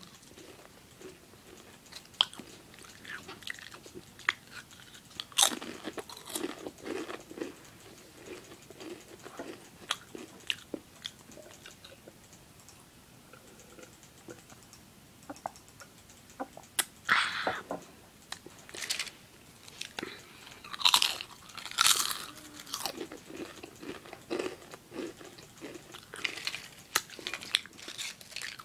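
A person biting and chewing a crisp apple right at the microphone. Wet crunches and mouth clicks come in irregular bursts, loudest about five seconds in and again around 17 and 21 to 23 seconds.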